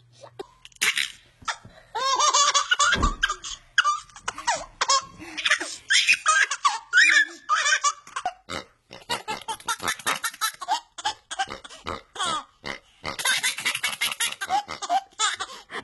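Several babies laughing hard, one after another, in quick repeated peals of laughter.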